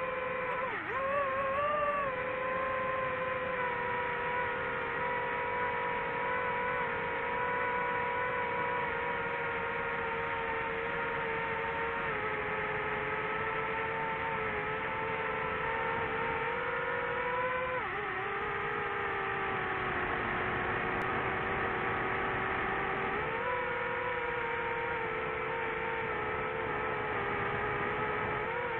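DJI FPV drone's motors and propellers whirring with a steady hum. The pitch dips about a second in and again about two-thirds of the way through, then steps back up as the throttle changes.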